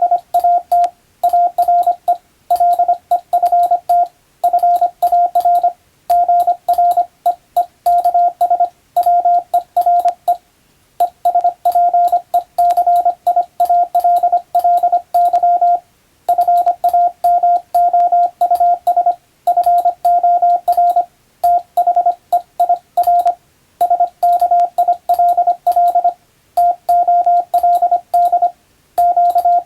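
Morse code (CW) sent as a single steady beep tone keyed rapidly on and off in dots and dashes, in letter and word groups broken by short pauses, as in radiotelegraph receiving practice.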